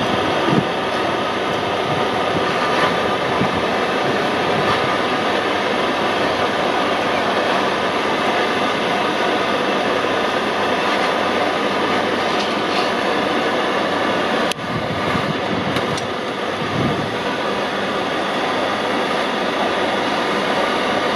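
Glassworker's bench torch burning with a steady rushing hiss while glass rods are melted in its flame.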